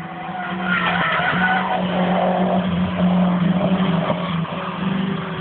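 Turbocharged Peugeot 205 engine running hard at fairly steady revs on track, with tyres squealing through a corner. It gets louder about a second in.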